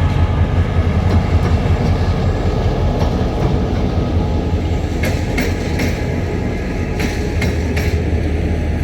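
A train rolling by with a steady low diesel drone. A little past halfway its wheels click over rail joints in two quick groups of three.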